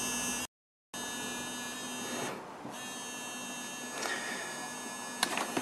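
Small phone vibration motor buzzing continuously in an opened phone with battery and charger connected, a fault sign of the phone not booting after a SIM card slot replacement. The buzz drops out briefly near the start, and a few clicks come near the end.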